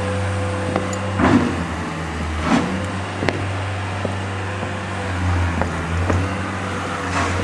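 A steady low machine hum with a few dull knocks in the first half.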